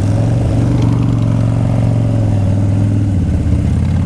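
Harley-Davidson V-twin motorcycle engine running at steady, even revs while riding.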